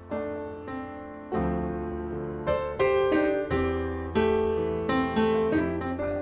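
Background piano music: single notes and chords struck one after another, each fading away before the next.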